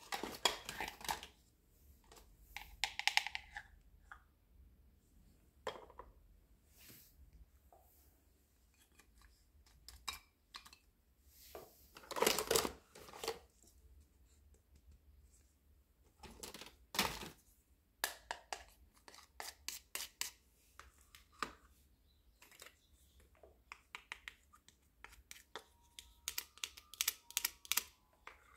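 Small plastic toy kitchen pieces being handled: pots, lids and a cutting board picked up and set down, giving scattered clicks and taps, with a quick run of clicks near the end.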